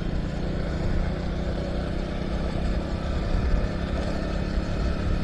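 Motorcycle engine running steadily at cruising speed on a gravel road, with wind rumble on the microphone.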